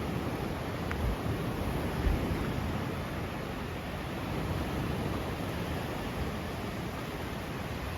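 Sea surf washing on the beach under steady wind rumble on the microphone, with two brief low thumps about one and two seconds in.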